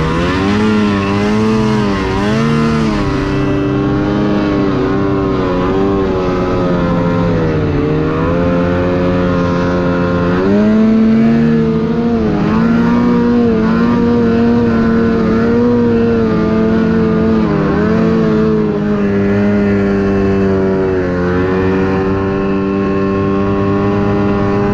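Snowmobile engine running hard, its pitch rising and falling again and again with the throttle as the sled is ridden back up the slope.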